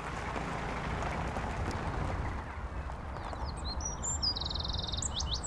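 A pickup truck towing a trailer pulls away over gravel, and the crunch of its tyres fades out about halfway through. Then a small songbird starts singing, with high chirps and quick trills.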